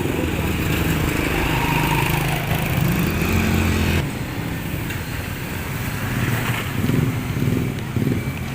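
A motor vehicle engine running close by, its pitch rising for a moment and the sound changing abruptly about four seconds in.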